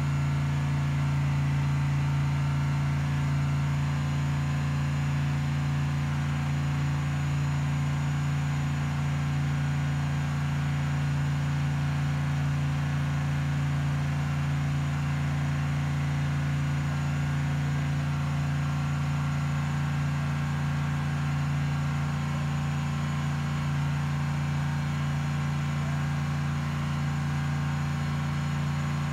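Mercedes GTD race car's 6.2-litre V8 idling steadily while warming up, an even low engine note with no revving.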